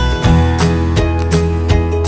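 Background music: acoustic guitar strumming over a steady bass line.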